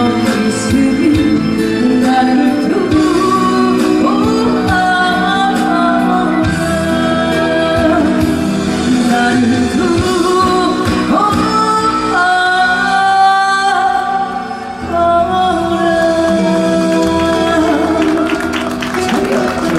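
A woman singing a slow Korean song, holding long wavering notes over instrumental accompaniment.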